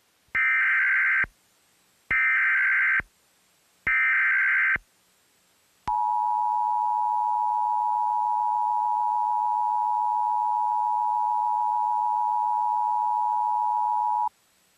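Emergency Alert System tones: three short bursts of the SAME header's warbling digital data tones, which carry the coded alert, then the two-tone EAS attention signal (853 and 960 Hz together) held steady for about eight seconds before cutting off.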